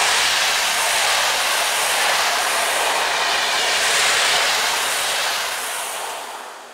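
Passenger coaches of a train rolling past on the rails: steady wheel-on-rail noise that fades out near the end as the last coach goes by.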